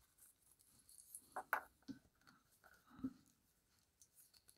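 Faint handling sounds of a watch on a leather strap being picked up and put on the wrist: a few soft clicks and rustles, the clearest pair about one and a half seconds in and another about three seconds in.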